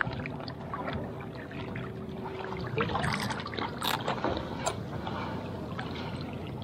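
Shallow water sloshing and splashing around a peacock bass held by hand at a rocky shoreline, with scattered small clicks and knocks.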